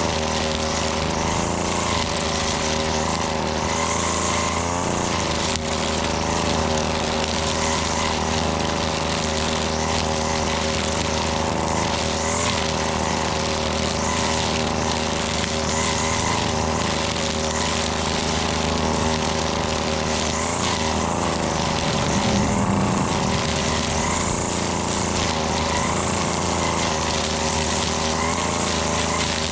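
Gas string trimmer engine running steadily at working speed, its note shifting briefly about three-quarters of the way through.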